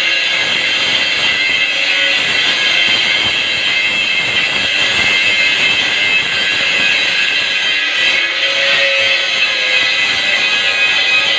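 Angle grinder running steadily under load, grinding down a fresh weld, with a high, even whine.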